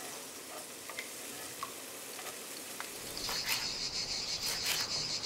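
Seafood stew simmering gently in a cast-iron pot, with a few light clicks. About three seconds in, a steady high-pitched chirring of insects starts up and carries on.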